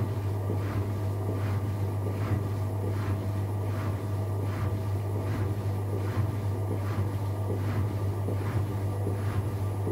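AEG Lavamat washing machine running, with a steady low hum and a swish that repeats about every three-quarters of a second as the drum turns.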